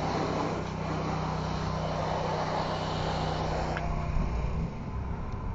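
Motor of a low-pressure soft-wash rig running steadily, with the hiss of a water spray rinsing the house wall. The spray hiss thins out about four and a half seconds in while the motor hum carries on.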